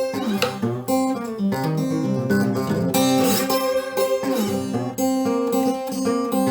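Background music played on acoustic guitar, plucked and strummed in an even rhythm.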